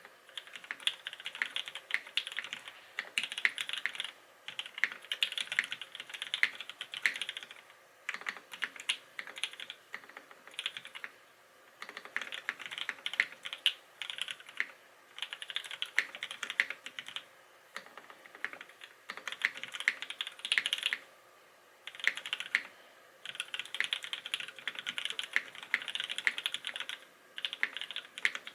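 Typing on a Smith + Rune Iron165 SE mechanical keyboard with lubed Gateron Black Ink linear switches on a carbon fiber plate, GMK Space Cadet keycaps and lubed Durock stabilizers. Runs of fast keystrokes, a few seconds each, with short pauses between them.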